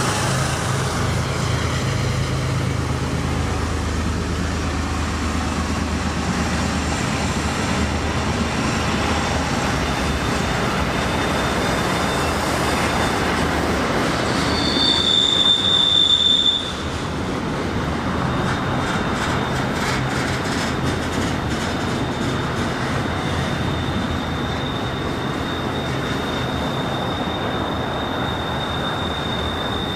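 BNSF freight train rolling past with its wheels squealing over the steady rumble of the cars on the rail. A low engine drone fades out in the first several seconds. A loud high squeal peaks about halfway through and cuts off, then a thinner steady squeal runs on through the second half.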